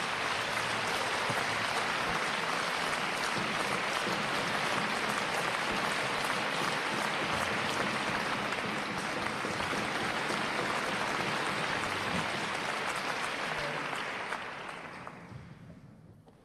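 Audience applauding steadily, then dying away over the last two seconds or so.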